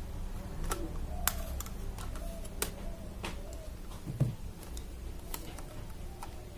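Irregular clicks and light knocks from a budget aluminium tripod's plastic leg clips and joints as its folded legs are spread apart and handled, about one a second. The loudest is a knock a little after four seconds in.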